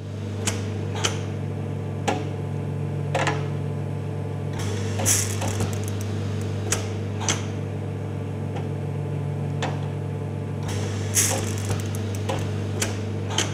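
TC-1 computer-controlled jacquard loom working: a steady electrical hum under irregular mechanical clicks and knocks, a couple of them with a short hiss.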